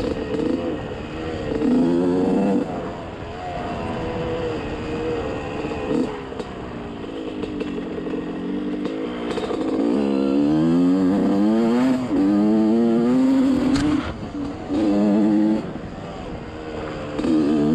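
Small engine of an off-road trail vehicle under way, revving up and easing off again and again, its pitch climbing under throttle and falling back. The hardest pulls come about ten seconds in and again near the end.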